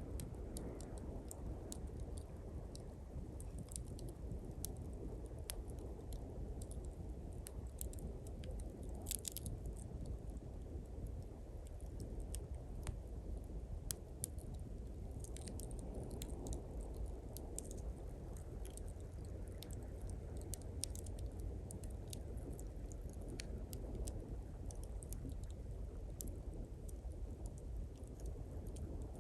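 Small campfire of thin pine twigs crackling, with many scattered sharp snaps and pops, over the steady low rush of sea waves on the shore.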